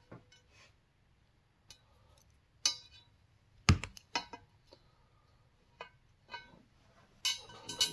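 Scattered light metallic clinks and taps of aluminium spoke nipples and a steel spoke being handled, the sharpest clink about halfway through and a short rattle of clinks near the end.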